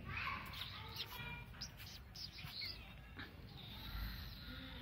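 Small birds chirping: a run of short, quick high chirps, then a longer whistled note near the end.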